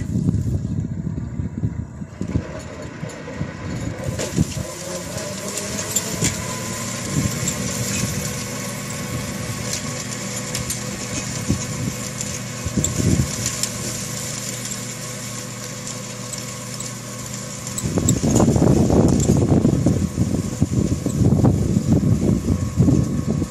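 Kubota GL338 tractor's diesel engine running steadily under load, driving a rear-mounted flail mower through grass as it approaches. Wind buffets the microphone with heavy rumbling from about three-quarters of the way through.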